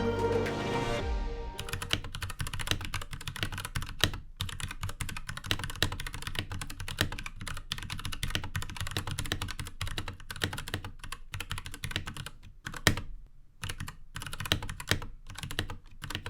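Fast typing on an Anne Pro 2 mechanical keyboard with Gateron Brown switches: a quick, uneven stream of key clacks with a few brief pauses near the end. Background music fades out in the first second or two.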